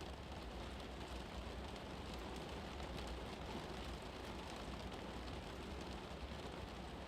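Steady background noise bed: an even hiss with a low rumble underneath, unchanging throughout.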